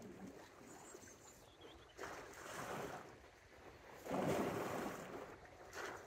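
Small sea waves washing against a stone breakwater in surges, the loudest a little after four seconds in.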